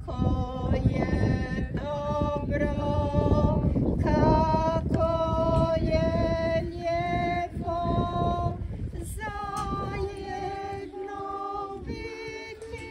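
A group of worshippers, women's voices to the fore, singing a slow Croatian hymn to the Virgin Mary in unison, holding each note long.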